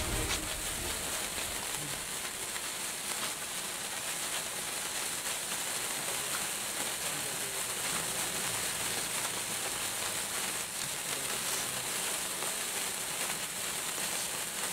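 A 75 cm electric wire sparkler burning: a steady high hiss with fine crackling from the sparks.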